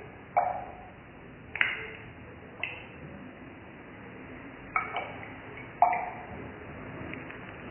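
Glass test tube in a metal test-tube holder clinking: five sharp pings at irregular intervals, each with a short ring, the last one the loudest.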